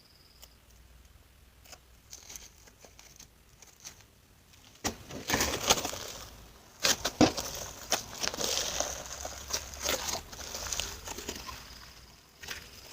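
Slime being handled and squeezed: scattered small clicks and crackles at first, then from about five seconds in a louder, dense run of sticky crackling and clicking that eases off near the end.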